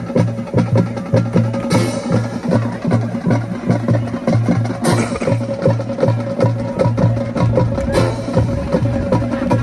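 High school marching band playing a percussion-heavy passage: a steady, even drum beat with clicking strokes over a held note, and a cymbal crash about every three seconds.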